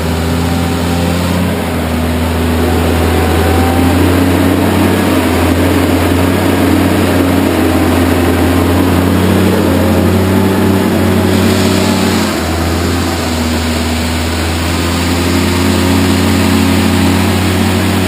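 Old Jeep's engine running steadily at low revs, with small changes in pitch, as the Jeep is hauled slowly up a muddy slope on a tow line.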